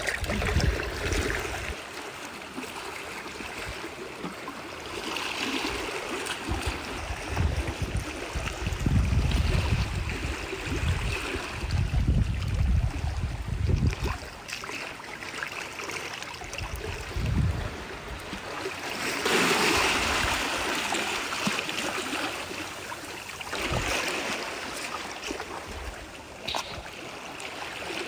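Shallow seawater in a tide pool sloshing and trickling, with a louder stretch of splashing about two-thirds of the way in. Gusts of wind rumble on the microphone now and then.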